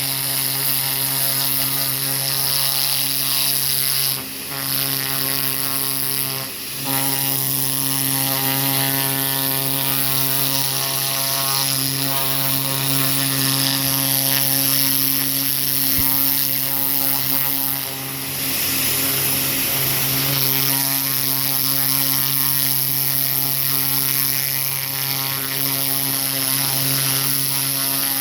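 Pressure washer running steadily: a constant motor-and-pump drone under the hiss of a water jet through a cut-down turbo tip, being sprayed over a turkey skin. The spray sound briefly drops out three times.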